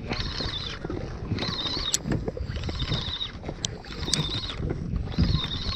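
Large spinning reel being cranked to wind in line, its gears whirring in spurts about a second apart, over a steady low rumble with a few sharp clicks.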